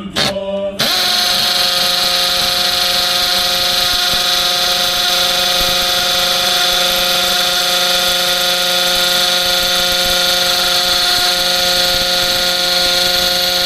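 Power drill motor running at a steady speed. It stops briefly and starts up again just under a second in, then holds one even whine.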